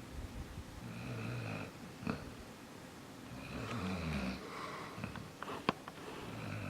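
Chocolate Labrador puppy snoring in his sleep: three snores about two and a half seconds apart, the last starting near the end. A few sharp clicks fall between them, the loudest about two-thirds of the way through.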